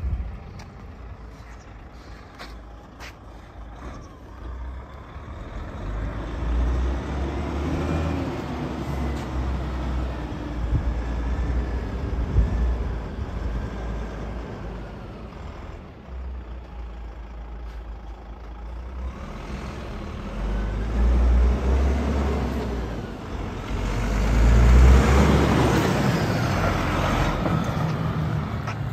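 DAF XF105.410 tractor unit's six-cylinder diesel engine driving across a paved yard, its note swelling as the truck accelerates twice, the second time louder, near the end. Faint whines rise and fall with the engine speed.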